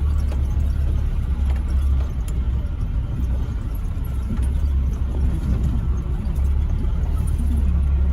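Jeep driving on a rough track: a steady low engine and road rumble, with a few light rattles from the body.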